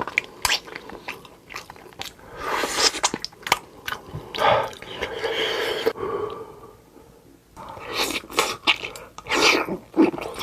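Close-miked chewing and biting of food, with crunchy bites and wet mouth clicks, easing into a short lull in the middle before the chewing picks up again.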